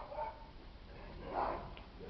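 Two short animal calls, one right at the start and one about a second and a half in.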